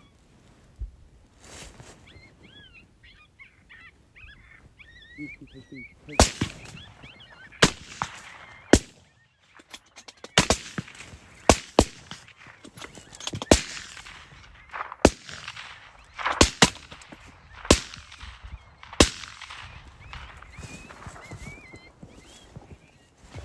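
Geese honking, then a string of about fifteen rifle shots fired irregularly over some thirteen seconds, several in quick pairs, with geese calling again faintly afterwards.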